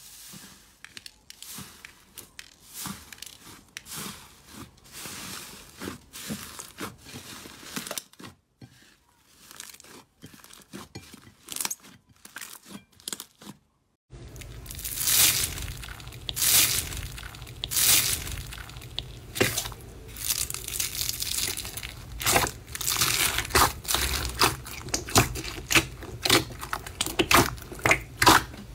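Hands pressing and squeezing slime, giving a run of short crackling pops and squishes. After a brief silence about halfway through, a louder, denser stretch of crackling and crunching begins, from slime packed with foam beads.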